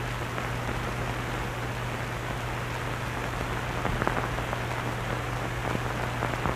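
Steady hiss and low hum of an old optical film soundtrack between narration lines, with a few faint clicks and crackles from about four seconds in.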